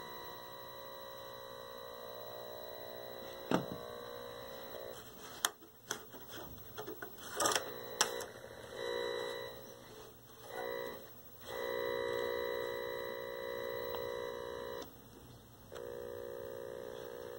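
Steady buzz of several stacked tones from a 1966 Admiral PK1369 vacuum-tube TV fed a test pattern by a Heathkit signal generator. The buzz changes pitch and cuts out several times, with a few sharp clicks, as the pattern changes from crosshatch to bars.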